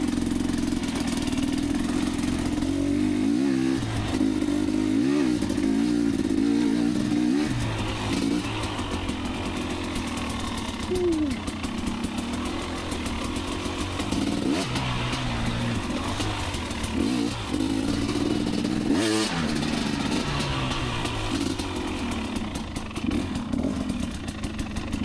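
Two-stroke dirt bike engine running under riding load, its pitch rising and falling again and again as the throttle is opened and closed along the trail.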